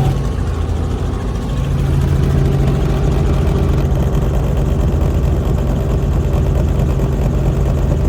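An engine running steadily, a loud low hum with a fine regular pulse.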